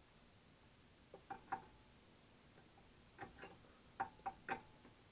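A steel wrench clinking against the compressor's metal fittings, about eight short sharp clicks in three small groups, some with a brief metallic ring.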